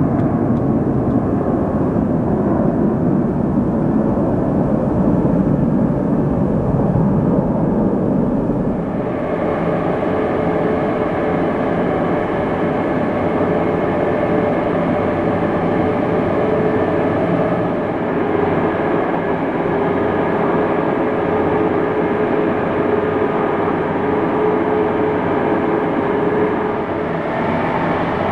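A twin-engine jet airliner climbing away after takeoff, its engines a steady low rumble. About nine seconds in this cuts to a steady whine with several held tones from a convoy of airport snow-clearing vehicles working the runway.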